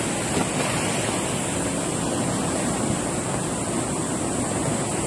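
Muddy floodwater rushing past in a steady, unbroken torrent.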